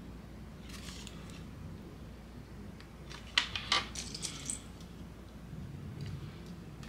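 Craft supplies handled on a tabletop: light rustling, then a quick cluster of sharp clicks of small hard items about three and a half seconds in, followed by more rustling.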